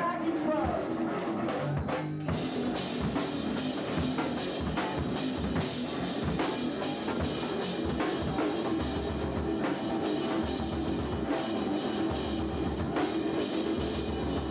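Small rock band playing live in a room: distorted electric guitar over a drum kit, with cymbals and drums coming in fuller about two seconds in.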